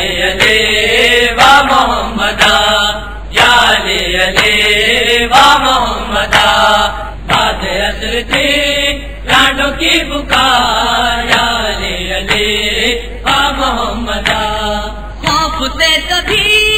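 A noha being chanted: a male voice reciting an Urdu Shia mourning lament in phrases that rise and fall, with short breaks between them.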